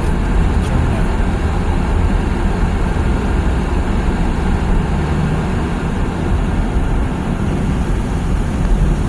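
Steady road noise heard inside a car's cabin while driving on a snowy road: a low engine and tyre rumble with a constant hiss.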